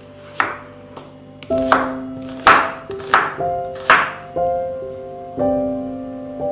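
Chef's knife chopping an onion on a wooden cutting board: a run of sharp chops, most of them in the first four seconds, over gentle piano background music.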